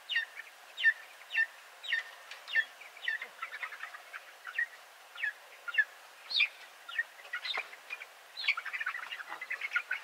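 Young Cornish giant meat chicks peeping: loud, short, falling peeps about two a second, growing into a denser chorus of cheeping near the end.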